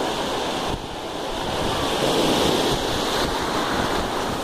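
Shallow ocean surf washing in at the water's edge, with wind buffeting the microphone. The wash swells up about a second and a half in and eases off again.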